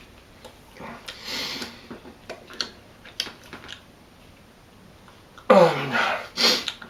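A man chewing raw stinging nettles, with a few sharp mouth clicks. Near the end come two loud wordless vocal sounds, the first falling in pitch.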